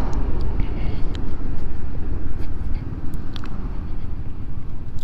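Honda Forza 350 scooter riding along, heard as a dense, fluttering rush of wind and road noise on the rider's microphone, with a few light ticks scattered through it.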